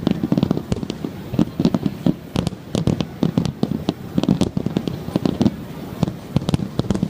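Aerial fireworks finale barrage: shell bursts going off in rapid, overlapping succession, deep booms mixed with sharp cracks several times a second.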